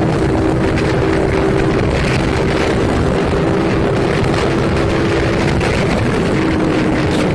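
Heavy wind rush over the microphone, with a Bajaj Pulsar 200NS's single-cylinder engine running at a steady high pitch, at about 100–110 km/h; the engine note drops slightly about six seconds in.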